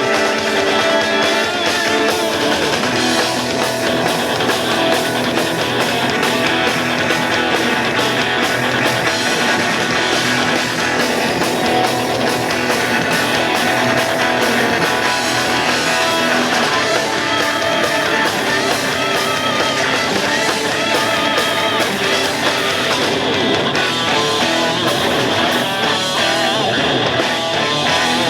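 Buskers playing rock music live, with guitar to the fore.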